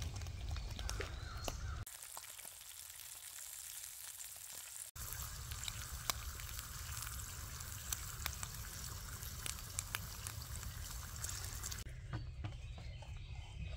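Sliced hard salami sizzling in a frying pan, a steady hiss with scattered sharp pops and crackles. The sizzle changes abruptly in level and tone a few times.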